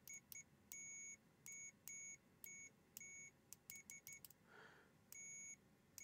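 Aneng AN101 multimeter's continuity beeper sounding as the test probes are tapped together. It gives an irregular string of steady high-pitched beeps, one for each touch: some very brief, some held about a third of a second, with a quick flurry just past the middle.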